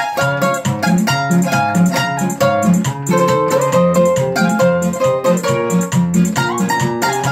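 Requinto and classical guitar playing the instrumental opening of an Ecuadorian pasacalle. The requinto picks a quick melody over the guitar's bass notes and chords in a steady, lively rhythm.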